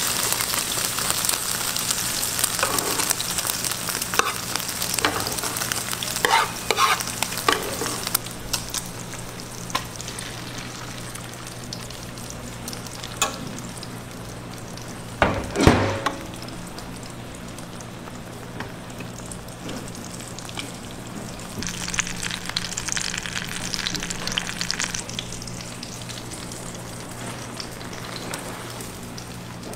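Beaten egg sizzling in a hot griddle pan while a giant rolled omelette cooks, with plastic spatulas and a spoon scraping and tapping the pan. The sizzle is loudest at the start and swells again later, and there is one louder knock about halfway through.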